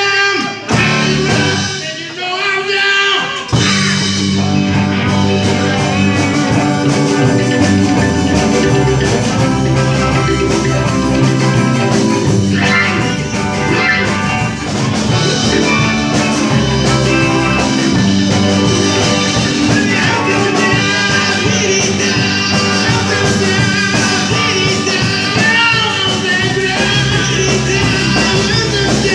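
Live rock band playing a rock-and-roll song with electric guitars, drums, keyboard and a singing voice. The music is sparser for the first few seconds, then the full band comes in strongly about three and a half seconds in and keeps going.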